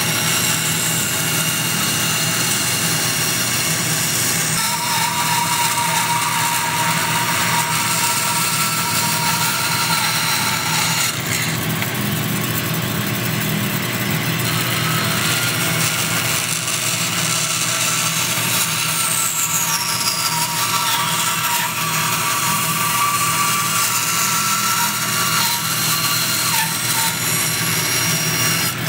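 Bandsaw running and cutting through a wooden spoon blank: a steady motor hum under the hiss of the blade in the wood. A higher whine comes in twice as the cut goes on.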